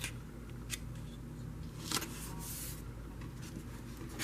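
Quiet handling of paper card stock: a few light taps and a brief rustle as an adhesive-backed panel is pressed down onto a card, over a steady low hum.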